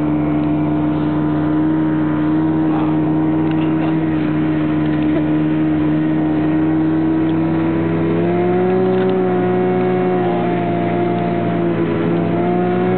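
Snowmobile engine running steadily, its pitch stepping up a little about eight seconds in.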